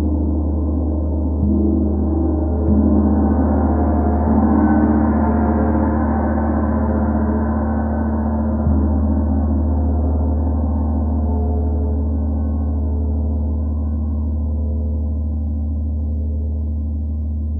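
32-inch Sri Yantra gong played with mallets: it is struck several times in the first few seconds and again about nine seconds in, keeping a deep hum going. Its shimmer swells brighter and then slowly fades.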